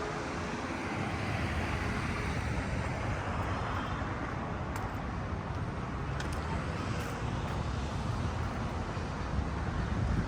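Steady city street traffic: cars driving past with a continuous low rumble.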